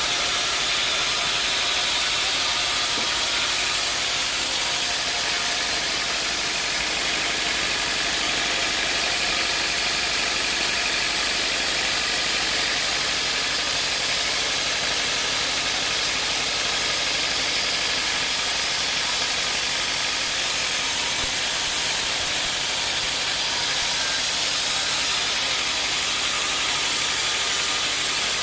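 Sawmill machinery running steadily: a constant mechanical noise with a hiss-like top and faint steady tones, with no change in level.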